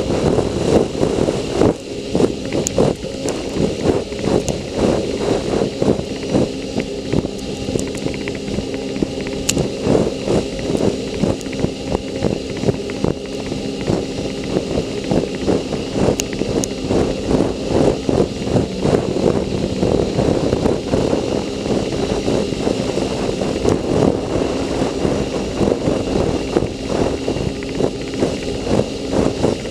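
Sea-Doo personal watercraft engine running steadily under way, with frequent irregular thumps throughout.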